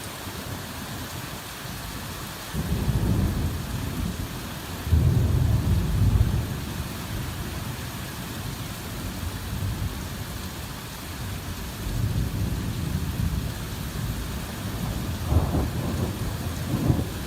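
Hard rain falling steadily, with low rolls of thunder rumbling over it several times: about two and a half seconds in, more loudly at about five seconds, and again near the end.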